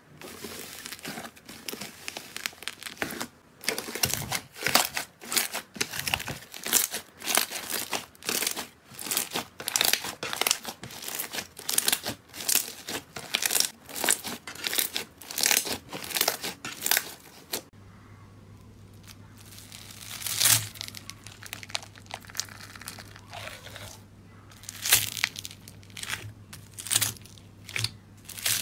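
Crunchy slime being squeezed and pressed by hand, making dense crackling and crinkling. About eighteen seconds in the sound changes to slower, sparser crunches over a low steady hum.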